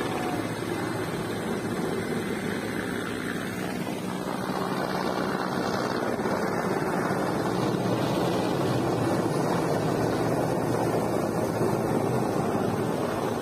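Military transport helicopter flying overhead: a steady drone of rotor and engine that grows louder from about halfway through as it passes closer.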